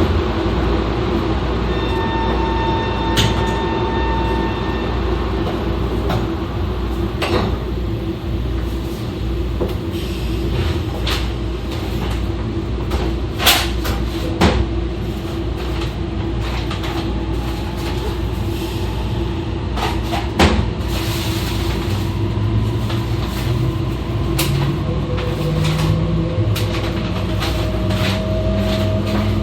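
Running noise of an E2-series Shinkansen heard from the car's vestibule: a steady low rumble with scattered knocks and rattles, and a steady tone for about two seconds a couple of seconds in. From about three-quarters of the way through, the Mitsubishi IGBT inverter and traction motors give a stepped rising whine as the train accelerates.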